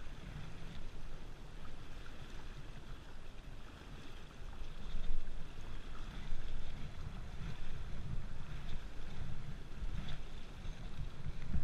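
River current rushing and splashing around a wading angler's legs, with wind buffeting the microphone in uneven low gusts.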